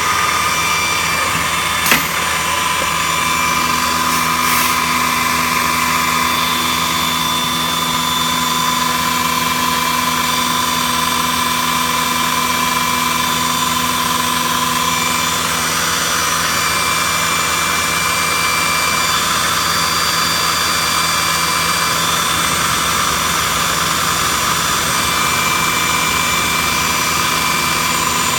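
CNC router running steadily, its spindle and boring-head motors whining at several steady pitches that come and go, with a sharp click about two seconds in.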